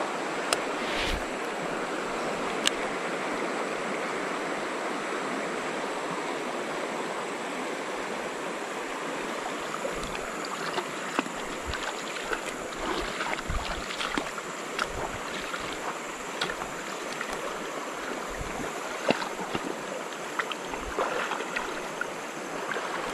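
Shallow river rapids rushing steadily. Scattered sharp clicks and taps sound over the water, more of them in the second half.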